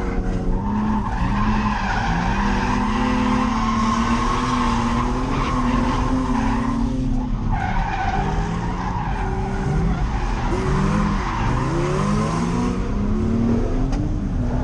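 Nissan 350Z's V6 engine revving hard through a drift, its pitch climbing and dropping again and again, with a brief lift about seven seconds in and quick blips near the end, over the hiss of tyres sliding on a wet track.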